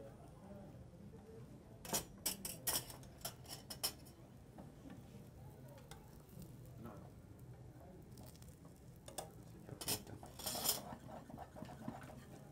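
Metal spoon clinking and scraping against a black metal frying pan holding a potato tortilla, in two flurries of sharp clicks: one about two seconds in, another near ten seconds.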